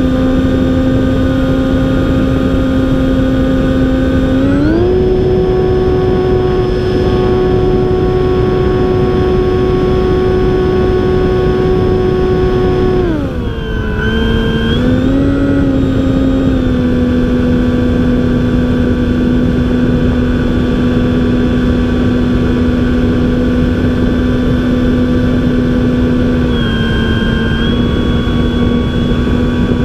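An RC plane's battery-powered electric motor and propeller, recorded from a camera on the plane: a steady pitched hum that rises as the throttle goes up about four seconds in, holds, then drops back and settles around the thirteen-second mark. Rushing airflow noise runs underneath.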